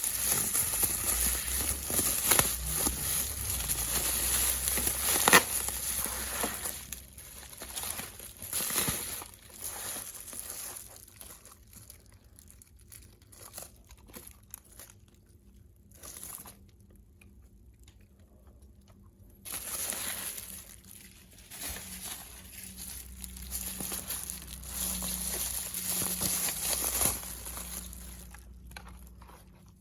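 Packaging crinkling and rustling as it is unwrapped and handled, with a few sharp clicks. It drops almost to quiet for several seconds midway and picks up again about twenty seconds in.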